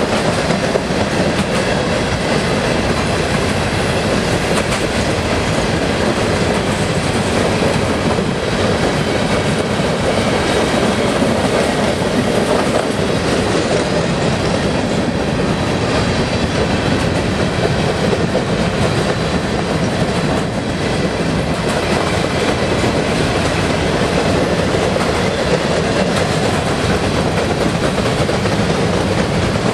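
Loaded freight train of covered hopper cars rolling steadily past, its steel wheels running over the rails and rail joints in a continuous noise.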